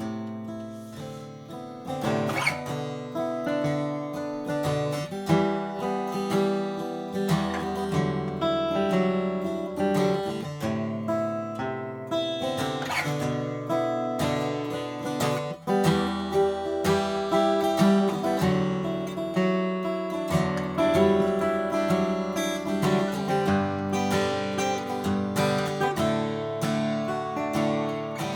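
Martin D-1 Authentic 1931 12-fret dreadnought acoustic guitar played solo, with strummed chords and ringing notes in a steady, rhythmic flow.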